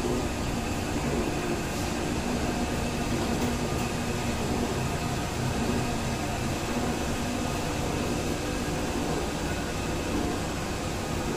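Electric dough kneader (atta mixer) running empty, its motor and drive giving a steady hum with a faint high whine as the kneading arm turns in the stainless steel bowl.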